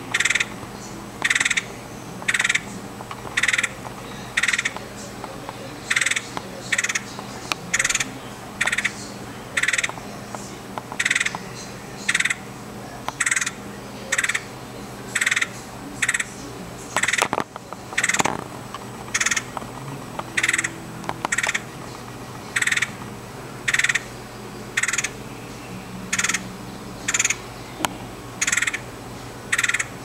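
Red-headed woodpecker calling: a short call repeated about once a second, with a few brief pauses.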